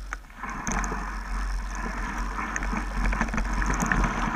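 Mountain bike rolling down a dirt trail: wind rumbling on the microphone, with the tyres crunching over loose dirt and the bike rattling in short clicks, getting louder as speed builds from about half a second in.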